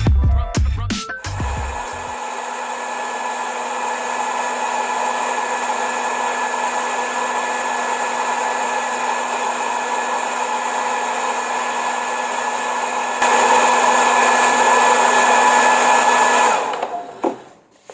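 Hair dryer running steadily with a constant whine, switched to a higher, louder setting about thirteen seconds in, then switched off near the end.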